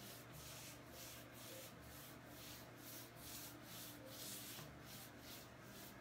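Faint swishing of a paintbrush's bristles scrubbing back and forth over a sanded wood veneer tabletop as a watered-down chalk paint color wash is brushed on. The strokes come quickly, about three a second, with one longer sweep a little after four seconds in.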